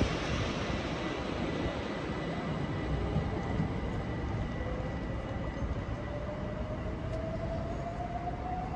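Class 357 Electrostar electric multiple unit pulling away and accelerating, its traction motors giving a slowly rising whine over a steady rumble of wheels on rail.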